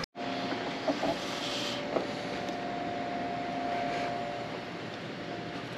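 Indoor room ambience: a steady hiss with a faint steady hum underneath and a couple of light knocks.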